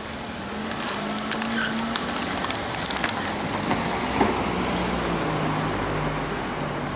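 A vehicle passing by: a low hum that rises a little, then falls steadily in pitch as it goes, with a run of sharp clicks in the first few seconds.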